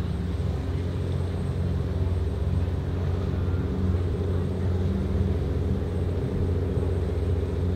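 Azimut motor yacht's engines running steadily: a deep, even drone of several low tones with no change in pitch.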